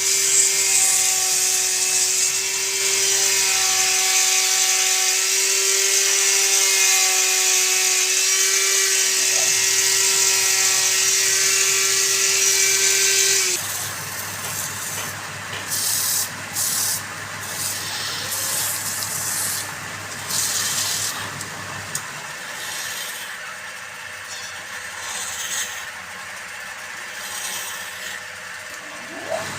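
Wood lathe in use: a steady motor whine with a loud hiss of cutting that stops suddenly about halfway through, followed by quieter running broken by short bursts of noise.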